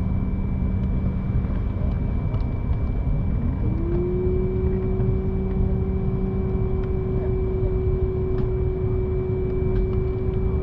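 Steady rumble of an airliner cabin with a constant hum. About three seconds in, a tone rises over about a second and then holds steady.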